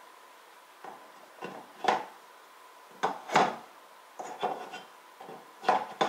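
Plastic pegboard containers being hooked onto and shifted on a fibreboard pegboard: a series of short sharp knocks and clicks, about ten spread irregularly over six seconds.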